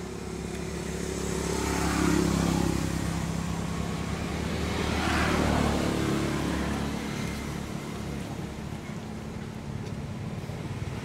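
Motor vehicles passing by, their engine and road noise swelling twice, loudest about two seconds in and again around five to six seconds, then fading.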